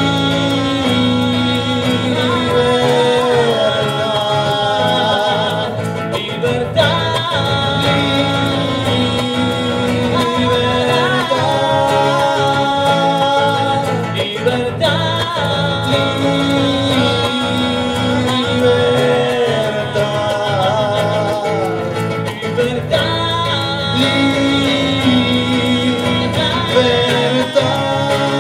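Live acoustic song: a classical guitar played under two male voices singing together.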